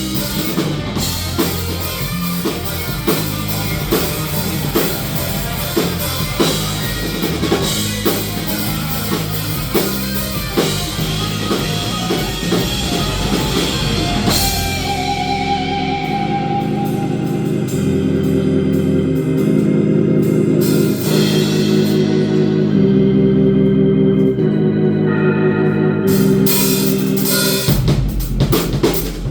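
Band music: a drum kit keeps a steady beat for about the first half, then drops out under sustained organ-like held chords, and the drums come back near the end.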